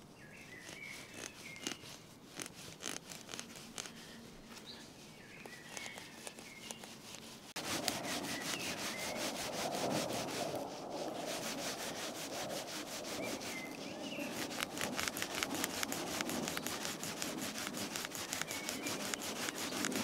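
A piece of rope sawed quickly back and forth between the tines of a hand-carved wooden fork, rubbing the wood as it sands the gaps smooth, in fast regular strokes. The rubbing gets suddenly louder about seven and a half seconds in.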